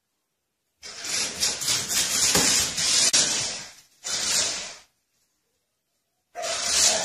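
Radio-controlled toy car whirring as it drives across a tile floor, in two bursts: one about four seconds long, then a second starting about six seconds in. Each starts and stops abruptly.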